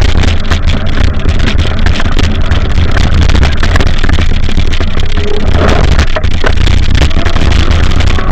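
Wind buffeting the camera's microphone while riding a bicycle: a loud, steady rumble and rushing noise.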